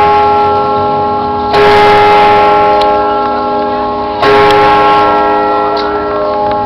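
Monastery church bell tolling the noon hour: two loud strikes, about a second and a half in and again near four seconds in, each ringing on and slowly fading into the next.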